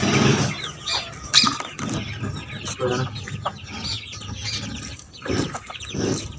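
Domestic chickens feeding: hens clucking while chicks peep in many short, high chirps throughout.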